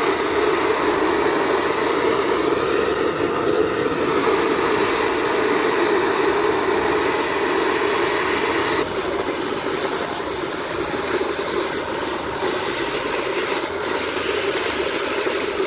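Gas blowtorch fed by a hose, burning steadily as it singes the hair and skin off raw pork trotters, with a slight change in tone about nine seconds in.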